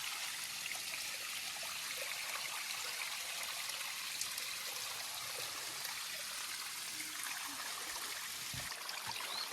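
Water streaming and trickling steadily down a flooded rocky trail, the trail running like a small waterfall.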